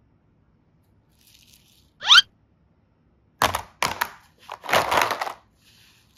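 A quick rising whoop, then several sharp clattering, crackling knocks of small hard-plastic flower-shaped boxes being handled and knocked together.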